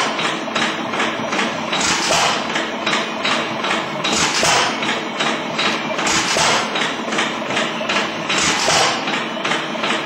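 A machine running with a rapid, even knocking, swelling louder about every two seconds.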